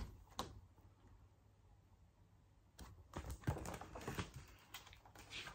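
Faint clicks and taps from a hardcover picture book being handled: a single tap near the start, then, after a near-silent pause, a run of soft clicks and knocks from about three seconds in.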